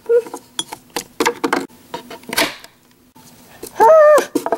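Light clicks and taps of plastic Littlest Pet Shop figures being handled and set down on a dollhouse floor. Near the end a short voice sound cuts in, about half a second long.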